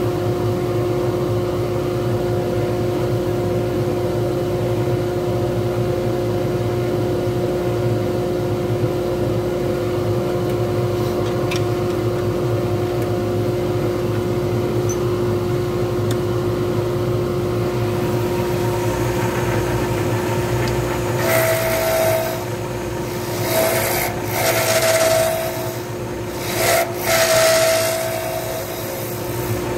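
Wood lathe running with a steady hum as it spins a pen blank. From about two-thirds of the way in, a turning tool cuts the spinning copper-leaf and grapevine blank in about five short scraping passes.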